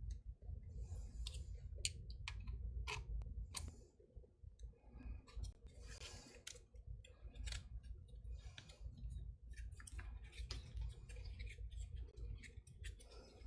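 Allen wrench turning in a small screw on a Master Lock padlock, with irregular light metal clicks and short scrapes as the wrench and lock are handled.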